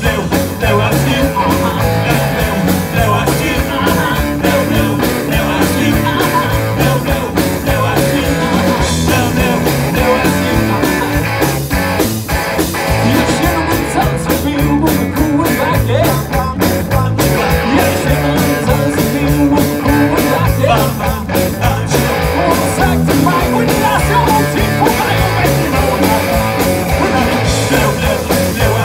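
Live rock band playing through a PA: electric guitar, bass guitar and drum kit keeping a steady beat, with a man singing into the microphone.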